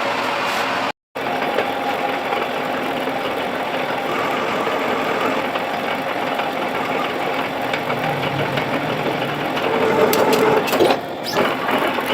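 Manual metal lathe running with a steady mechanical clatter of gears and spindle. The sound cuts out for a moment about a second in, and a few sharp clicks come near the end.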